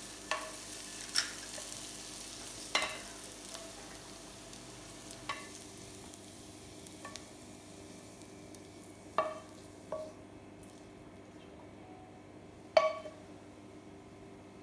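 Wooden spatula stirring potatoes in a frying pan, knocking against the pan several times, the loudest knock near the end. A faint sizzle of the pan cooling off the heat fades out about halfway through.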